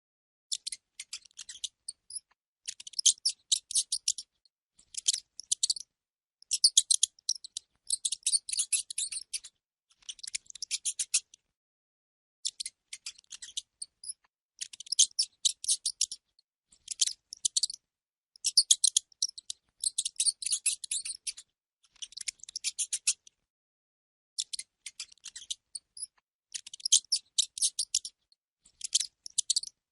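Rodent sound effect: rapid, high-pitched squeaking and chittering in bursts of one to two seconds, separated by short pauses.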